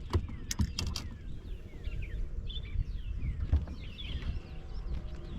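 Songbirds chirping again and again in short falling notes, with a few sharp knocks and low thumps in the first second or so.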